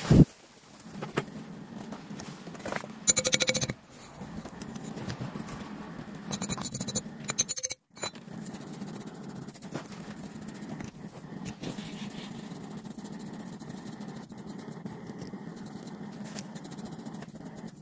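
Loose sand being scraped and brushed off a freshly cast metal piece, a steady low scratching, with two short bursts of rapid clicking in the first half.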